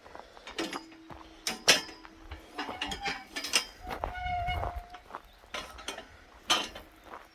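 Metal walk-through gate creaking on its hinges as it swings, with clanks and knocks of metal. There are two drawn-out squeaks, a lower one about a second in and a higher one about four seconds in.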